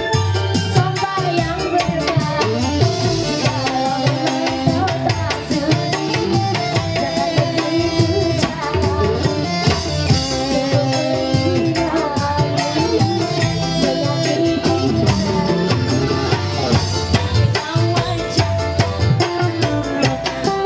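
Live dangdut band music: a woman singing into a microphone over a keyboard and a quick, steady hand-drum beat.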